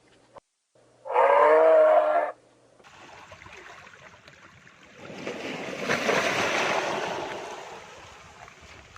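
A farm animal's call, about a second long, then a rushing, breathy noise that swells and fades over several seconds.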